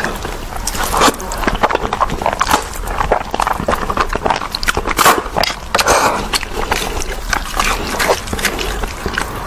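Instant noodles being slurped and chewed wetly, in quick irregular smacks and clicks, with the loudest slurp about five seconds in.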